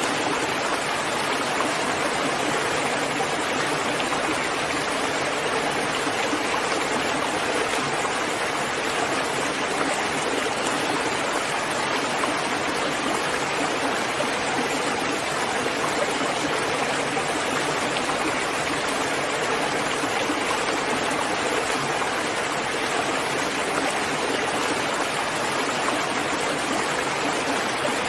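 Steady rain falling, a dense, even hiss with no single drops standing out.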